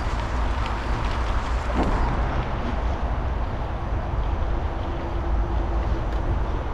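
Steady noise of a bicycle ride, with a heavy low wind rumble on the microphone and the rolling noise of the ride.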